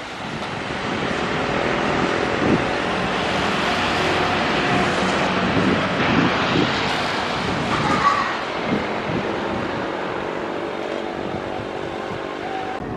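Jet engines of a Boeing 777-300ER at takeoff thrust: a loud, steady roar with a few held engine tones in it, easing slightly in the second half.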